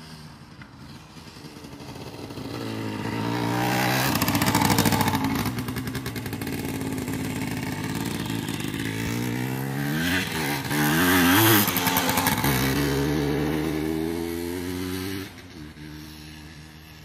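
Yamaha DT 175 two-stroke single-cylinder trail bike being ridden. It grows louder over the first few seconds, revs up and down in pitch around the middle, and fades quickly after about fifteen seconds as the bike moves off.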